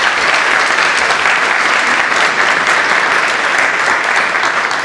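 Audience and performers applauding: steady, dense clapping that holds at one level.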